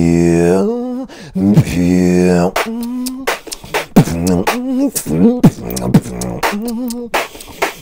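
Solo human beatboxing: two long hummed notes with a wavering pitch, then a quick rhythm of short hummed notes alternating with sharp mouth-made clicks and snare-like hits.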